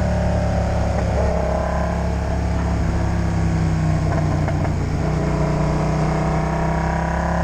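Motorcycle engine running under way on a soaked road, with steady road and wind noise; the engine pitch climbs slightly near the end as the revs rise.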